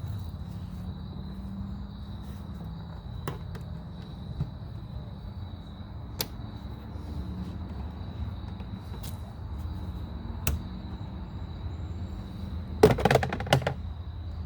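Scattered light clicks and taps from working the retaining clip of a manual window crank handle on a pickup door, with a short burst of clatter near the end, over a steady low hum.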